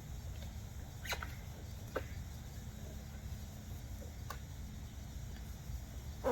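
A few light clicks and scrapes of a plastic door-panel handle assembly being worked loose by hand, over a steady low hum.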